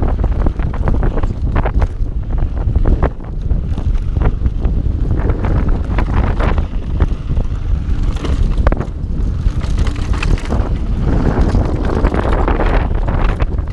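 Wind buffeting the action-camera microphone as a Mondraker mountain bike descends a rough dirt singletrack, with frequent short knocks and rattles from the bike running over bumps and stones.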